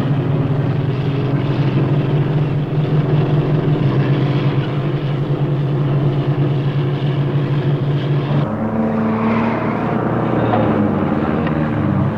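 Diesel tractor-trailer engine running steadily, a deep drone from the cab under way. About eight and a half seconds in, its sound shifts higher and brighter.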